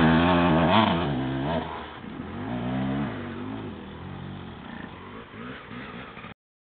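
Enduro dirt bike engine revving and pulling away, its pitch rising and falling with the throttle and growing fainter as the bike rides off. The sound cuts off abruptly near the end.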